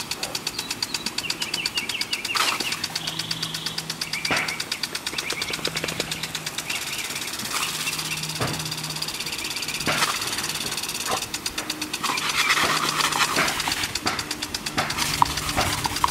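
Pop-up lawn sprinkler head ticking rapidly and evenly as it throws its jet of water, over the hiss of the spray. The ticking comes and goes in runs.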